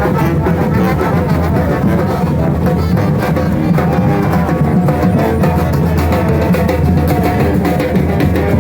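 Loud, steady dance music with drums and percussion over a heavy bass line.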